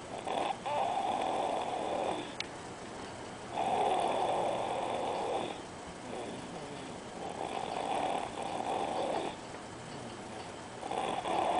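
Snoring in a slow, even rhythm: four long snores, each about two seconds, coming about every three and a half seconds.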